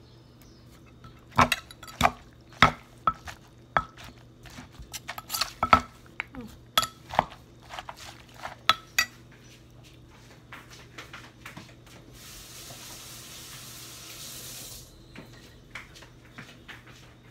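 Wooden pestle knocking and a metal spoon scraping in a clay mortar as papaya salad is pounded and tossed with rice noodles. The sharp knocks come irregularly, one or two a second, for the first nine seconds or so, followed by a few seconds of steady hiss and a few light knocks near the end.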